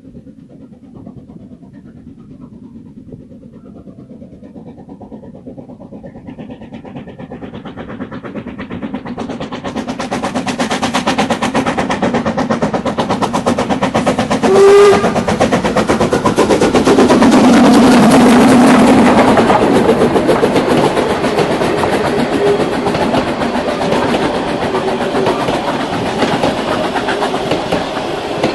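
HSB metre-gauge steam locomotive hauling a train of coaches, approaching and passing close by. It starts faint and grows steadily louder with rapid, regular exhaust beats, and gives a short whistle toot about halfway through. Near the end the coaches roll past, their wheels clicking over the rail joints.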